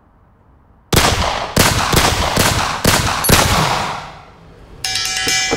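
A string of about six handgun shots, roughly one every half second, each ringing out and fading. Music starts near the end.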